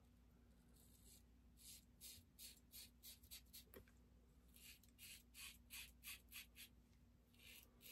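Faint, short strokes of an Everyday Shaving magnetic safety razor, scalloped scalp side of the plate, drawn through lathered stubble. They come in quick runs of about three strokes a second, with a short pause between runs.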